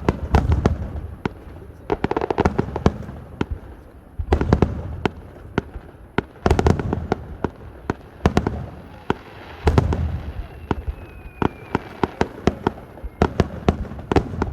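Fireworks display: aerial shells bursting with deep booms about every two seconds, each followed by a dense run of sharp crackling pops.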